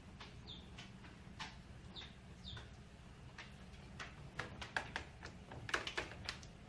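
A bird giving a few short, faint falling chirps, followed by a run of light clicks or taps in the second half.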